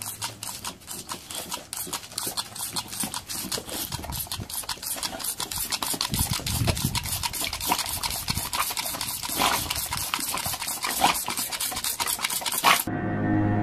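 A boxer dog snapping and gulping at a jet of water from a toy squirt gun: a fast, unbroken run of wet clicks and spatters. It cuts off suddenly near the end, where music starts.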